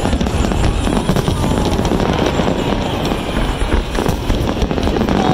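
Fireworks show: aerial shells bursting in quick succession, a dense, unbroken run of booms and crackles.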